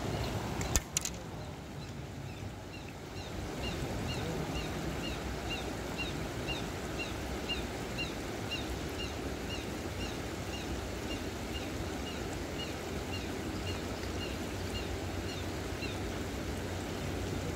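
Steady rushing of water running through a concrete weir, with a short high chirp repeated about twice a second through most of it and two sharp clicks about a second in.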